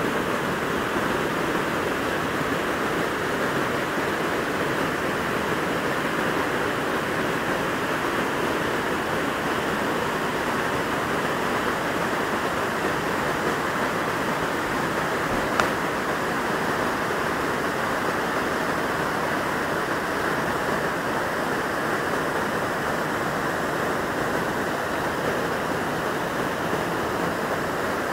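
Steady rush of water from a Himalayan mountain stream cascading down the slopes, an even noise without changes.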